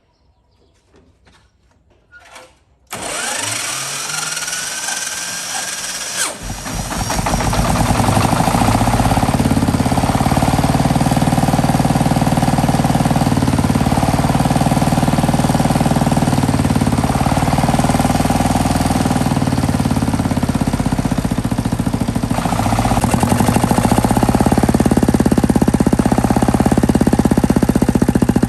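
The single-cylinder diesel of a small four-wheel tractor is cranked by its starter with a rising whine about three seconds in, catches about three seconds later and runs loud and steady, growing louder near the end. It runs through a 4-metre extended exhaust pipe meant to quiet it, which the owner finds does little to quiet it.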